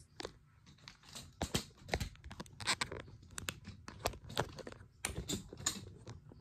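Irregular close handling noises: a scatter of soft clicks, taps and rustles, some in quick runs, as something is picked up and moved about near the microphone.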